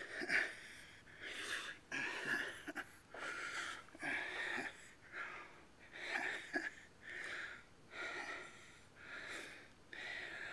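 A 63-year-old man breathing hard, each breath a loud rasping puff, in and out about once a second: he is winded from exertion.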